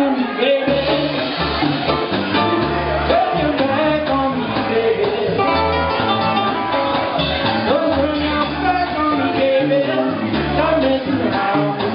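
Live band music: a ukulele played with bass guitar and drums, and a man singing.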